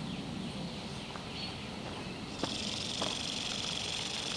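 Faint insect chirping, then about halfway through a click and a sudden steady hiss as a washing-machine solenoid water inlet valve opens and a garden sprinkler starts spraying, set off by the motion detector.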